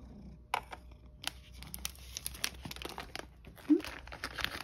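Plastic cat-treat packets crinkling and rustling as they are handled, getting busier from about a second in. Near the end there is one brief voiced sound, the loudest moment.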